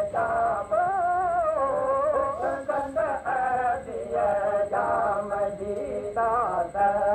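Singing of a Sindhi molood, a devotional song in praise of the Prophet, the voice carrying a wavering, gliding melody in phrases with short breaks.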